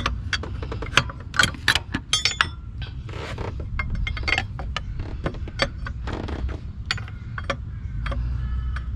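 Plastic radiator fan shroud being worked down into its slot in the engine bay by hand: a run of irregular sharp clicks and knocks of plastic against metal and plastic, over a low rumble.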